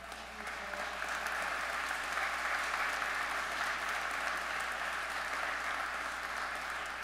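Congregation applauding. The applause swells over the first couple of seconds, holds steady, and begins to ease off near the end.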